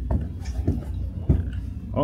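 Footsteps going down carpeted stairs: three dull thuds about half a second apart, over a steady low rumble.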